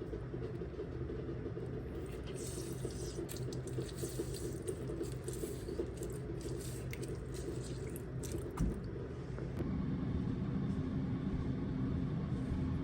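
Tap water running into a kitchen sink while raw chicken thighs are washed by hand, with small splashes and clicks and a single knock about two-thirds of the way through.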